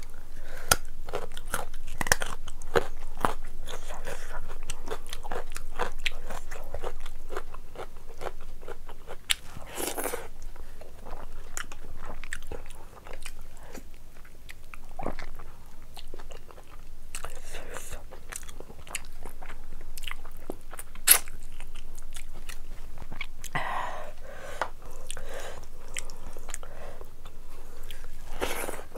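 Close-miked eating: crunching bites of a raw carrot piece, then chewing of rice, curry and meat eaten by hand, with many small clicks and crackles. A louder crunchy burst comes about ten seconds in, and a single sharp click a little past twenty seconds.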